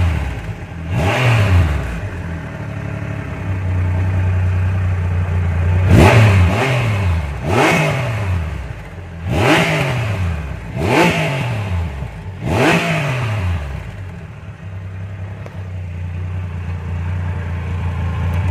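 Triumph Rocket 3 motorcycle's three-cylinder engine at idle, revved in about six quick throttle blips that each rise and drop back to idle; the last blip comes about two-thirds of the way through, then it idles steadily.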